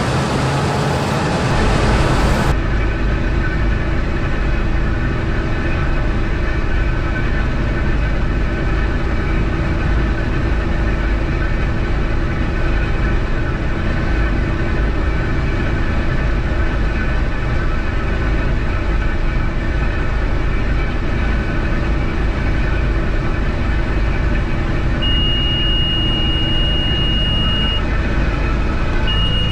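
New Holland TR89 combine harvester running steadily while harvesting oats. Near the end a thin, steady high tone sounds for about three seconds, then starts again just before the end.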